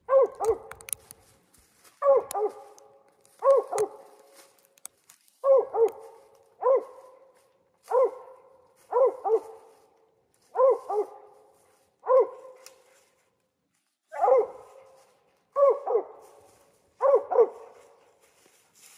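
Original Mountain Cur tree-barking: a steady run of short, loud barks, roughly one every second or so and some in quick pairs, the dog's signal that she has squirrels treed above her.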